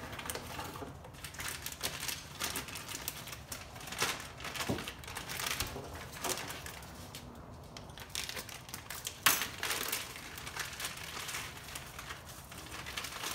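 Packaging being handled and opened by hand: a small cardboard box and plastic bags of parts crinkling and rustling, with scattered clicks and taps and one sharper knock about nine seconds in.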